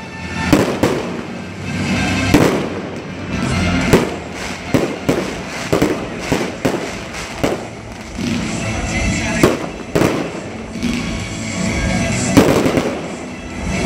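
Aerial fireworks bursting in quick, irregular succession, a dozen or more sharp bangs with crackle between them, the loudest near the end. Music plays underneath.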